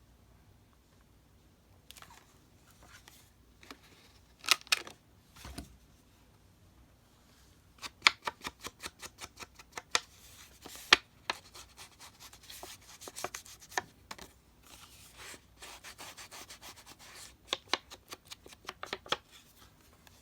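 Paper being handled and rubbed by hand, with scattered scrapes and rustles and, about eight seconds in, a run of quick rubbing strokes at about five a second.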